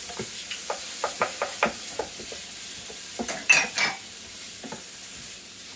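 Onions and shimeji mushrooms sizzling as they are stir-fried in a pan, with a utensil clicking and scraping against the pan as they are stirred, including a louder cluster of knocks about three and a half seconds in.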